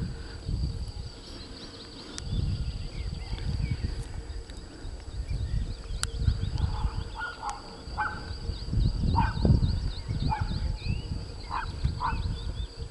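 Wind buffeting the microphone in uneven gusts, with small birds chirping throughout and a bird giving short, repeated calls from about halfway on.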